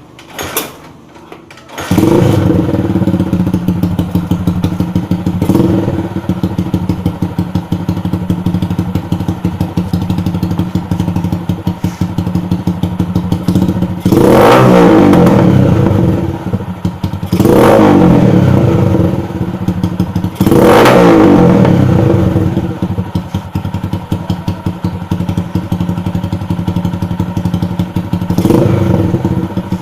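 Yamaha TMX 155 single-cylinder four-stroke engine, fitted with a customized muffler, starting about two seconds in and idling with a steady pulse. It is revved hard three times in the middle and once more lightly near the end, each rev dropping back quickly to idle.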